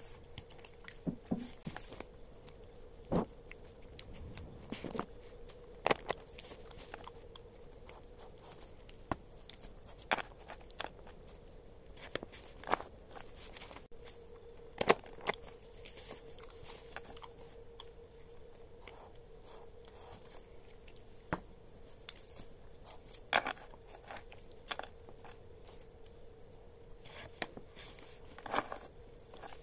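Pen writing and tapping on a paper planner, with pages being handled and turned: scattered small clicks, scratches and paper rustles. A faint steady hum runs underneath.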